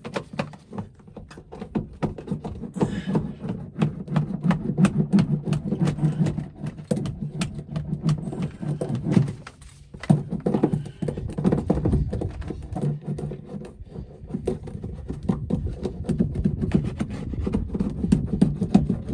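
Hand roller being worked back and forth over self-adhesive butyl sound-deadening mat on a car's sheet-metal floor. It makes a rapid, uneven clatter of clicks and knocks, with a short pause about halfway through.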